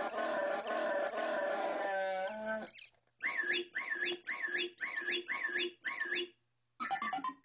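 Circuit-bent Star Wars 'Sound-Blaster' keyring sound module playing a warbling Chewbacca-like roar for about two and a half seconds that slides down in pitch, then a short chirping scrap of sound stuttering six times at about two a second, and a brief glitchy fragment near the end.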